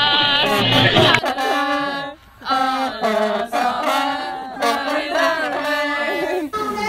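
Two trombones playing a slow melody in held notes that step from pitch to pitch, with a brief break a little after two seconds. For about the first second, music and voices from the previous scene are heard before the trombones begin.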